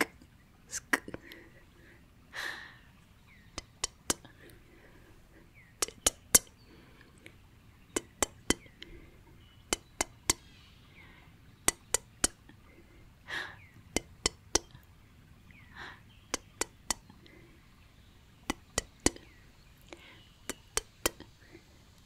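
Close-miked ASMR mouth sounds: crisp, wet tongue and lip clicks, scattered irregularly and often coming two or three in quick succession, with a few short breathy puffs between them.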